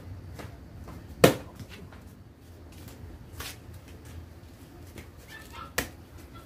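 Taekwondo kicks slapping handheld kick paddles: three sharp smacks, the first about a second in and the loudest, the others about two seconds apart.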